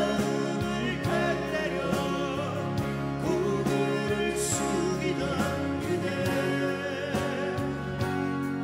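A live folk-pop song: men's voices singing over acoustic guitars, with a backing band of keyboards and percussion.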